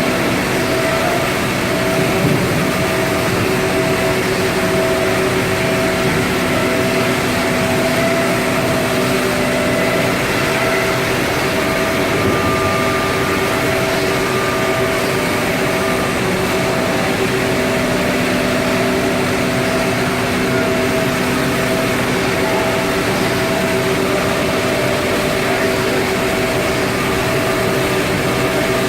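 Anderson Stratos Pro CNC router running: a loud, steady machine whine made of several held tones over a constant rushing noise.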